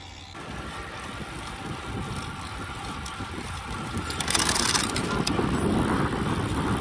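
Road bike rolling on asphalt: tyre hum and wind across the microphone. It gets louder through the clip, with a short, brighter rush of hiss about four seconds in.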